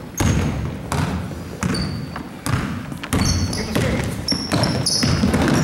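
Basketball game sounds on a gym floor: a ball bouncing with irregular thuds, sneakers squeaking in short high chirps, and voices from players and spectators underneath.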